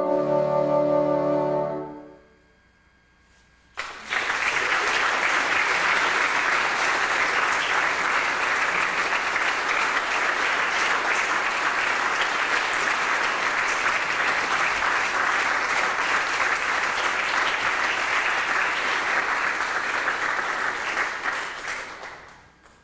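Four bassoons holding a closing chord that cuts off about two seconds in. After a short silence, an audience applauds steadily for about eighteen seconds, dying away near the end.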